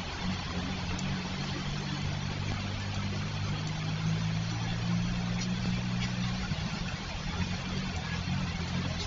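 Road traffic: car engines running with a steady low hum over a constant hiss. The hum eases about six and a half seconds in.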